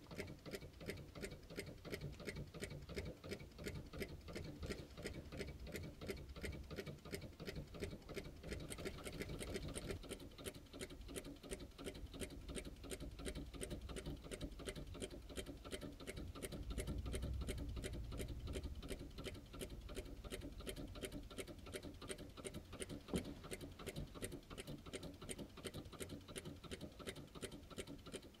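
Small flame-heated Stirling hot-air engine running, its mechanism clicking in a fast, even rhythm. A brief low rumble swells and fades a little past the middle.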